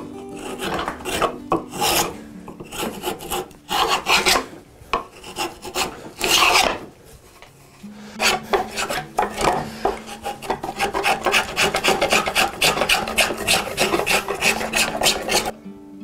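Spokeshave cutting shavings from the curved edge of a hardwood piece in repeated scraping strokes. The strokes are spaced out at first, then come quick and close together for most of the second half before stopping.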